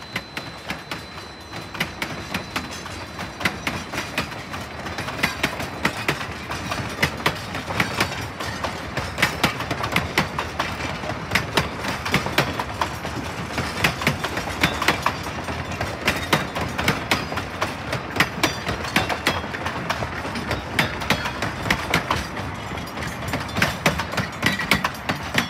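Narrow-gauge passenger coaches rolling past over a grade crossing, their wheels clicking and clacking over the rail joints in a dense, irregular stream over a steady rumble, growing louder toward the end as the caboose passes.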